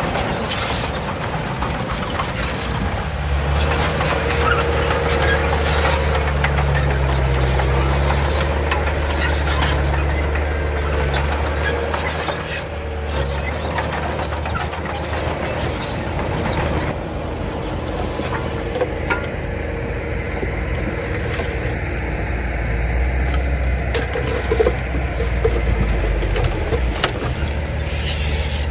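Komatsu D31 bulldozer's diesel engine running steadily under load, with high metallic squealing and clatter from the machine working that thins out about two-thirds of the way through.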